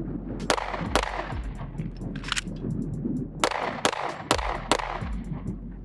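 A string of about six pistol shots fired in uneven groups during a timed drill on a 3x5 card target, with short pauses between them.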